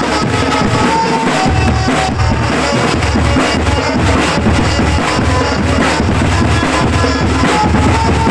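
Drum band music for a gedruk jathil dance: steady, dense bass drum and snare strokes with short melodic notes over them, loud throughout.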